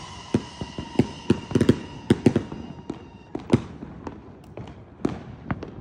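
Whistling-to-thunder firework shells bursting: many sharp bangs at irregular intervals, the loudest about two and three and a half seconds in. Faint whistles from the last shells fade out in the first few seconds.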